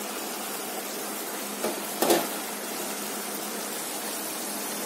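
Pachadi sizzling steadily in a hot pan as curry leaves are stirred in, with a couple of brief scrapes of the metal ladle about two seconds in.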